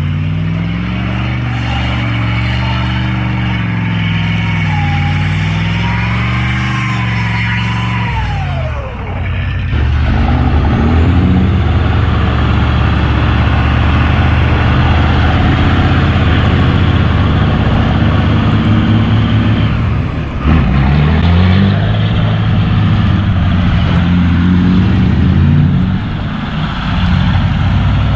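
5.9 12-valve Cummins turbo diesel engine pulling the truck along, its note climbing and easing. The engine note drops away about 9 and 20 seconds in, then climbs again. A faint high whine rises along with it after each drop.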